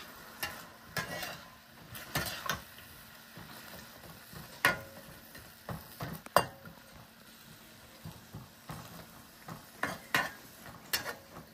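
Metal spatula scraping and clinking against an aluminium wok while stir-frying snow peas and meat, with a light sizzle underneath. The scrapes and knocks are irregular, with the sharpest two a little under halfway through.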